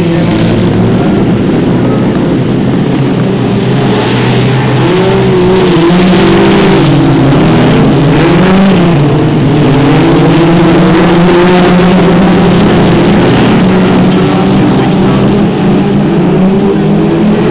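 A pack of F2 stock cars racing round a shale oval, their engines running loud and continuous. Several engine notes rise and fall as the cars accelerate down the straights and lift for the bends.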